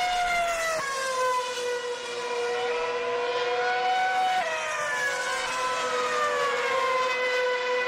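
2007 Formula One cars' 2.4-litre V8 engines running at very high revs as they pass, a high tonal wail whose pitch drops about a second in, climbs between about two and four seconds, then falls away again.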